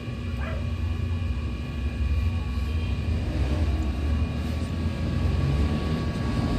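A wheel-repair machine spinning a freshly straightened alloy wheel on its shaft: a steady hum with a low rumble.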